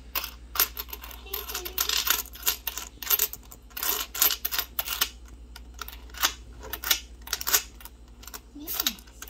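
Pennies clicking against one another as a fanned-out roll of one-cent coins is pushed along coin by coin with a thumb. The clicks are sharp and irregular, a few a second.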